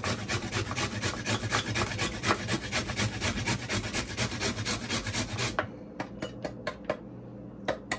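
Carrot being grated on a small handheld metal grater: rapid, even rasping strokes, about four or five a second. The strokes stop about five and a half seconds in, leaving a few lighter clicks.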